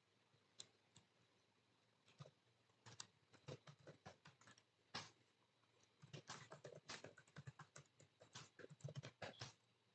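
Faint typing on a computer keyboard: two lone keystrokes near the start, then quick, irregular runs of key clicks from about two seconds in.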